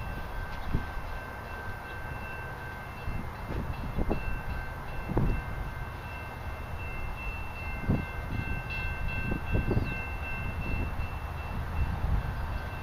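Wind buffeting the microphone, a low rumble with irregular gusty thumps. Behind it sit a few faint, steady high-pitched tones.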